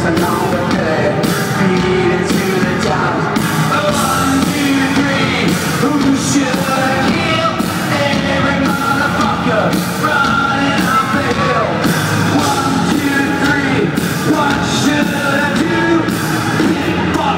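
Loud live heavy rock music from a band on an arena stage: a singer's vocals over distorted guitars and pounding drums, heard from within the audience in a large hall.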